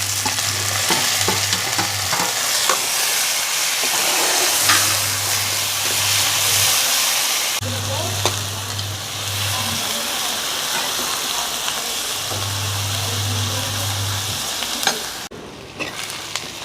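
Sliced onions sizzling in hot oil in a pan, with a spatula stirring them and clicking against the pan now and then.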